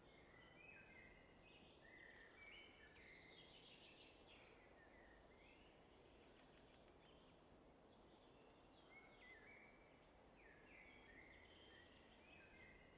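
Near silence with faint high chirping in two runs of quick, stepping notes, one in the first half and one near the end.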